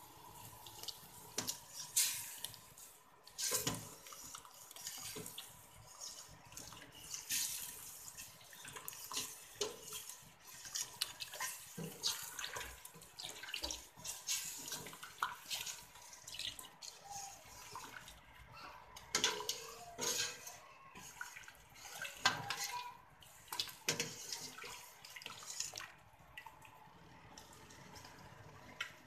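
Sambal laksa broth being stirred and sloshed in a stainless steel stockpot, with irregular clinks and knocks of a utensil against the pot. The clatter dies down near the end.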